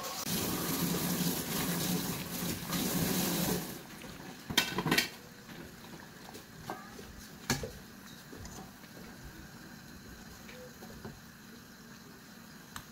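Pot of yukgaejang boiling, with a metal ladle stirring through the soup, loudest for the first few seconds. The ladle clinks against the pot a few times, and a quieter bubbling simmer goes on.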